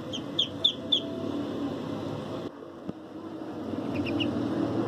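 Duckling peeping: four short, high, slightly falling peeps in the first second, then three more in quick succession near the end, over a steady low background hum.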